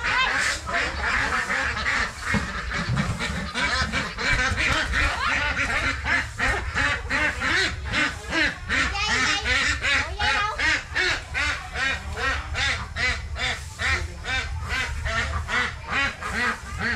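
A flock of domestic ducks quacking continuously, many short calls overlapping one another.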